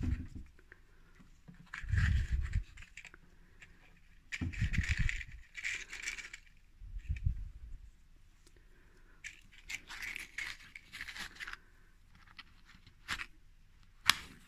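Tealight candles in metal cups being handled and set down on a cloth-covered table: a series of short scrapes, rattles and light knocks, with one sharp click near the end that is the loudest sound.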